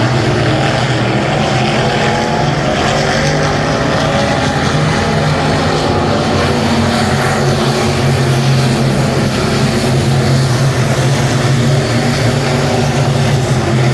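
Pack of USRA B-Modified dirt-track race cars' V8 engines running together at racing speed, a loud, steady mix of several engines overlapping.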